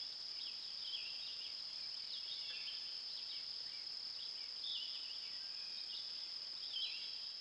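A steady high-pitched insect trill with short bird chirps repeating over it about once a second.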